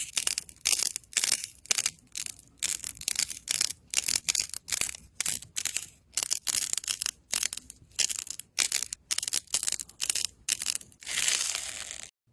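Crunchy slime being squeezed and pressed by hand: a rapid series of crackling crunches, about three a second, with one longer crunch near the end.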